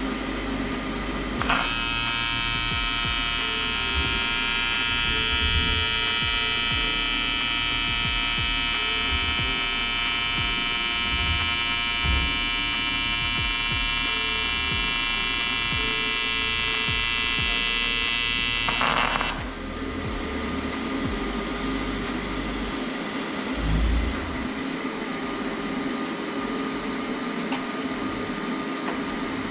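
TIG welding arc from an AHP AlphaTIG 201XD inverter welder buzzing steadily. It strikes about a second and a half in and cuts off after about 17 seconds, leaving a lower steady hum.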